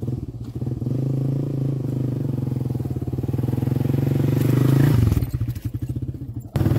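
Small motorcycle engine running steadily and growing louder as the bike comes down a dirt trail and passes by. About five seconds in, the note drops away. Near the end a louder, closer engine sound cuts in abruptly.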